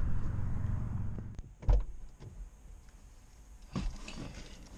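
A steady low rumble for about a second, then a single heavy thump and a few small clicks, knocks and rustles as someone climbs into a car's driver's seat.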